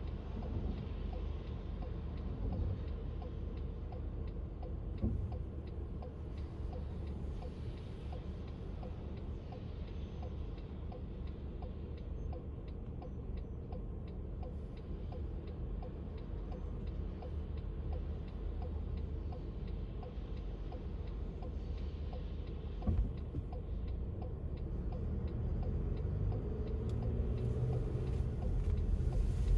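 Steady road traffic rumble with a regular light ticking throughout; the traffic grows louder near the end as vehicles pass.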